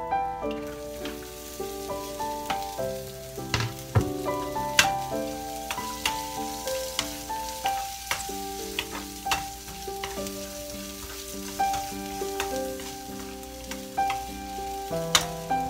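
Chopped onions sizzling in hot oil in a frying pan with peanuts and curry leaves. A wooden spatula stirs them, with sharp knocks and scrapes against the pan, the loudest about four to five seconds in and near the end. Piano music plays underneath.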